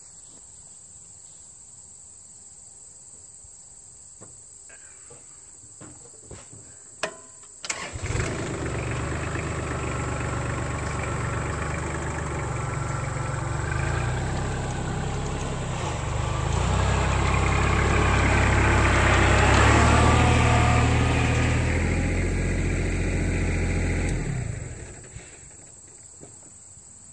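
Kubota L3800 tractor's three-cylinder diesel engine: a few clicks, then it starts about eight seconds in and runs as the tractor backs up. It is louder for several seconds in the middle and dies away near the end.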